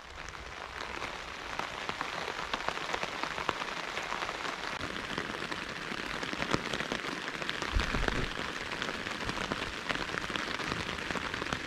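Rain pattering on a tent's flysheet, heard from inside the tent: a dense, steady patter of drops that builds over the first couple of seconds into a heavy downpour.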